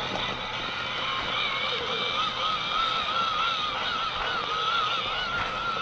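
Small electric motor and gearbox of an MN D99s RC Defender truck whining as it drives, the pitch wavering up and down and rising slightly about a second in.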